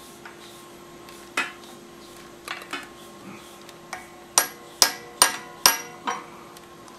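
Hammer tapping a steel punch to drive a Woodruff key into the crankshaft keyway of an Allis-Chalmers C engine: a few scattered metal taps, then five sharper ringing strikes about half a second apart in the second half.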